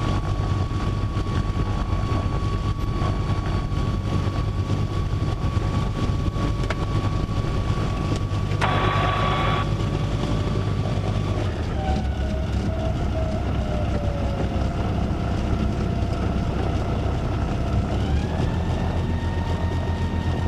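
Small aircraft's piston engine running at low power during taxi, heard inside the cockpit. Its note drops about twelve seconds in and rises again near eighteen seconds. There is a brief burst of hiss about nine seconds in.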